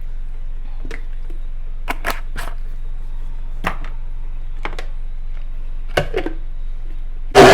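Scattered light clicks and knocks of kitchen handling over a faint steady hum, then near the end an electric countertop blender switches on abruptly and runs loudly, blending fresh green seasoning herbs.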